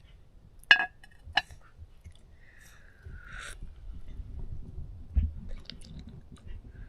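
A child sipping and slurping hot milk from a cup, with two sharp clicks near the start and handling noise after the sip.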